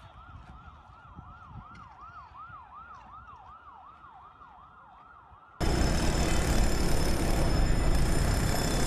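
Emergency-vehicle siren wailing in a fast yelp, its pitch sweeping up and down about three times a second, fairly faint. About five and a half seconds in it cuts off abruptly into a much louder, steady rushing noise.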